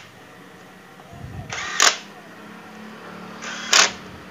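Cordless impact wrench run twice, about two seconds apart, each time a short whirr that breaks into loud rapid hammering as it drives a bolt into the engine casing of a Yamaha Mio J scooter.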